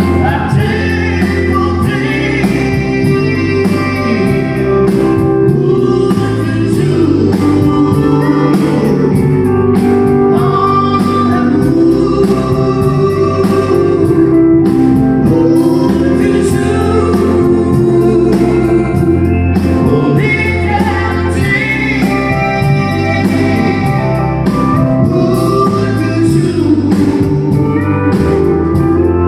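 Live country-western band: a woman singing into a microphone over acoustic guitar, drums and keyboard, amplified through a PA.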